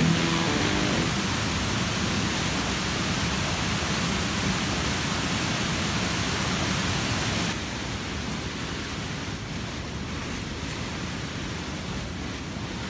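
Steady rushing water of a tall waterfall, about 100 m high, filling the sound with a dense even noise. A little over halfway through it turns abruptly quieter and duller.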